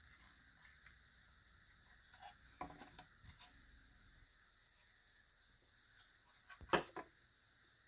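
A printed circuit board handled and turned over on a wooden tabletop: a few faint taps and clicks, with a sharper cluster of clicks about three-quarters of the way through.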